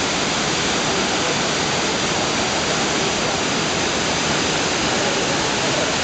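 Shiraito Falls: a main fall and a wide curtain of many thin streams pouring from a cliff into a pool, giving a steady, even rush of falling water.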